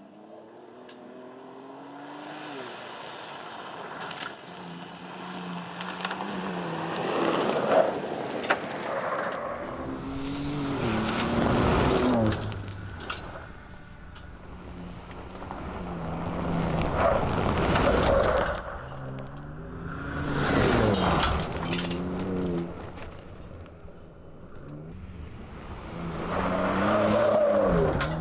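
Ford Ranger Raptor pickup driven hard on a loose dirt and gravel track, its engine revving up and dropping back again and again through gear changes. The sound swells loudly about five times as the truck comes close, with tyres scrabbling on the loose surface and sharp ticks of flung stones.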